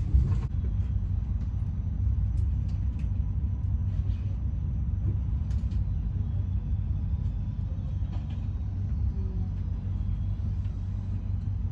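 Steady low rumble of a train, with faint scattered clicks and rattles.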